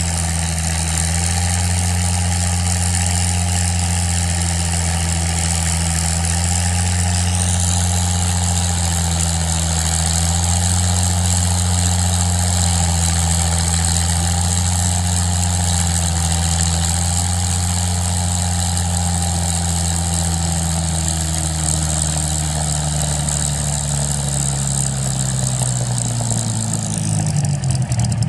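Spitfire's Rolls-Royce Merlin V12 engine running steadily at idle on the ground, its propeller turning. Over the last few seconds the engine note sags slightly lower in pitch.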